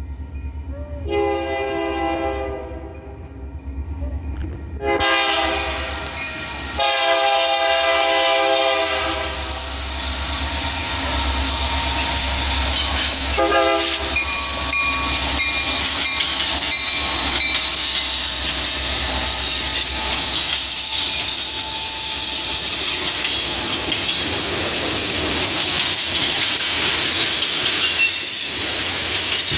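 Union Pacific 1979, an EMD SD70ACe diesel locomotive, sounding its air horn over the rumble of its engine: a long blast, a shorter one, another long blast, then a brief toot about 13 seconds in. After that the freight train rolls by, wheels clattering steadily with high squeals from the rails.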